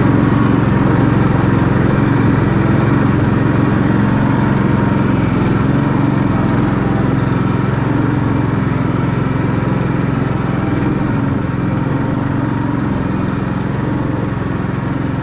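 Karakat's engine running steadily while the vehicle drives along, a loud, even drone.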